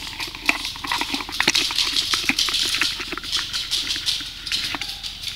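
Handling noise from a camera mounted on a paintball marker as the player moves: irregular clicks and knocks over a steady hiss.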